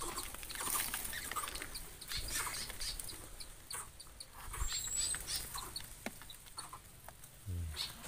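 Birds in an aviary calling faintly: scattered short chirps, a thin high whistle a little past halfway, and a short low call near the end.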